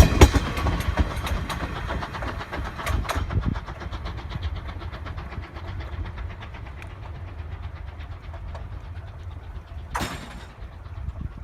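Wheels of the C12 66 steam train's passenger coaches clacking over rail joints as they pass, the clacks fading away over the first few seconds. A quieter low rumble continues after that, with one brief louder noise about ten seconds in.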